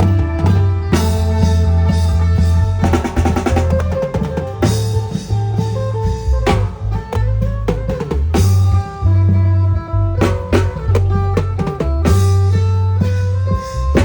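Loud band music from a modern Thai klong yao (long drum) procession band: a drum-kit beat with held bass notes and melody lines.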